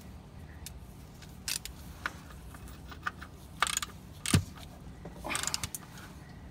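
Socket ratchet clicking and clinking in short, irregular bursts as it runs a drain plug back into the Kubota L3200 tractor's oil pan. One louder metallic clunk comes a little past the middle, and a quick run of ratchet clicks follows near the end.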